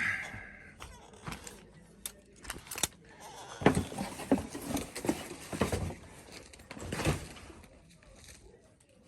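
Small camera tripod quick-release plates and their packaging being handled: a string of clicks, taps and light rattles, busiest in the middle.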